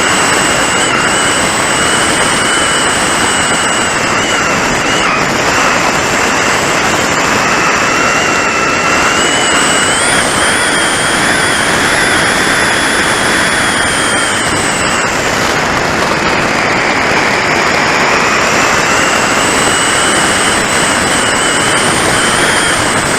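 Airflow rushing past the on-board camera of a Top RC Lightning electric sailplane in flight, with a thin whine that slowly rises and falls in pitch, highest about ten seconds in and again near the end.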